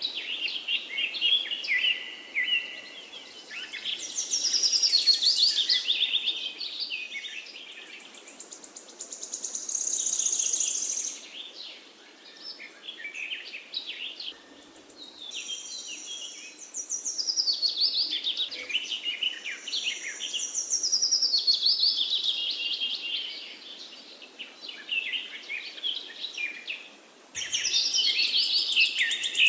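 Birds chirping and singing in rapid, high-pitched trills, with short lulls between bursts.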